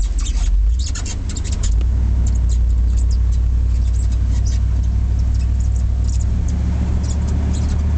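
A 1989 Chevrolet K2500 pickup's 5.7-litre 350 small-block V8 running under way, heard from inside the cab as a steady low drone, with frequent small clicks and crackles over it. The drone dips briefly about a second in, then holds steady.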